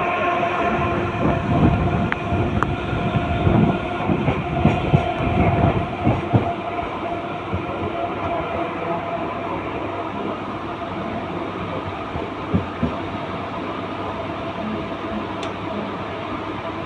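Mumbai suburban local electric train running at speed, heard from aboard: wheels clattering and knocking over the track, with a steady multi-tone whine. The clatter is heaviest in the first six or seven seconds and settles into a steadier rumble after.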